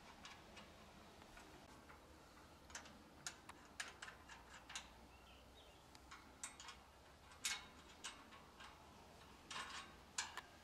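Faint, scattered metal clicks and taps of tools on bolts and steel tubing as a Smith machine frame is assembled, coming irregularly about once a second.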